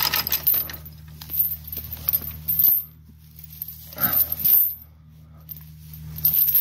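Light metallic jingling and clinking in several short bursts, over a steady low drone.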